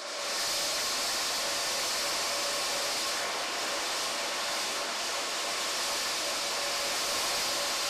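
Electric game-plucking machine running: its motor and blower give a steady whirring rush with a steady hum as wood pigeons are plucked on it.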